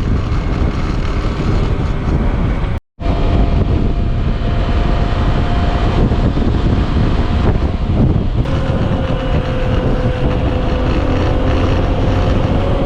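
A vehicle on the move, with a steady loud rumble of wind on the microphone and a faint steady engine tone; the sound cuts out completely for a moment about three seconds in.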